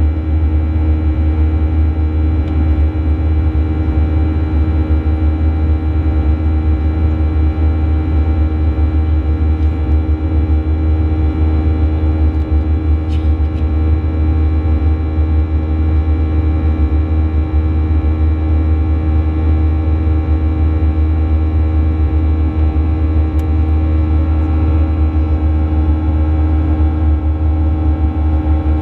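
Inside the cabin of a Boeing 737-800 climbing after takeoff: a loud, steady low drone from its CFM56-7B turbofan engines, with a constant hum of several steady tones over it.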